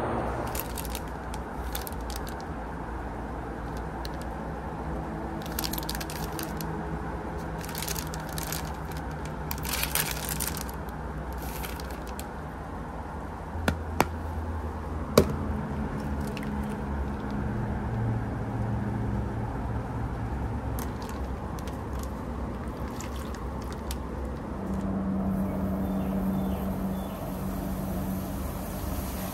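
Plastic packaging of a self-heating rice meal is handled, with rustling and crinkling and two sharp clicks near the middle. Near the end comes a steady fizzing hiss as the heating pack starts to react in water and steam.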